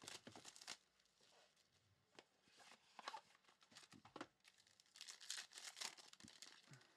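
Faint tearing, crinkling and scraping of packaging as a sealed box of trading cards is opened by hand, in a series of short rustles.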